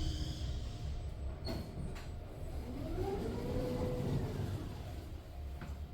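Elevator car standing at a floor with its doors cycling: a brief chime, two clicks, then a whine from the door operator rising and falling for about two seconds, over a steady low machinery hum.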